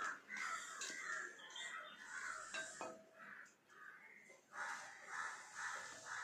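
Birds calling, a series of short repeated calls with a lull in the middle and a quicker run of calls near the end.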